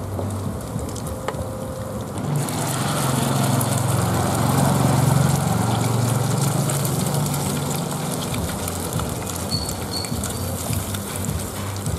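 River-worm (rươi) batter frying in hot oil in a pan: a sizzle starts suddenly about two seconds in as the batter goes into the oil and keeps going while more is spooned in. A low hum runs underneath and swells in the middle.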